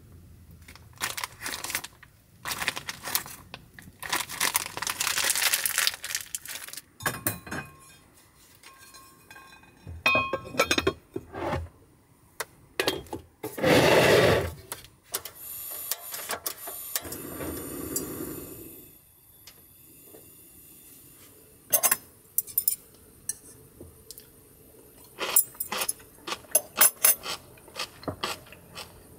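Cooking and table handling sounds: a string of separate clinks and knocks of pots, lids, utensils and dishes, with a louder rush of noise about halfway through while a cast-iron pot is handled on a cassette gas stove.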